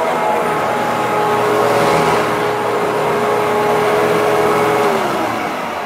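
Hoover Twin Chamber upright vacuum cleaner running steadily with a constant motor whine, then switched off about five seconds in, its motor spinning down with a falling pitch.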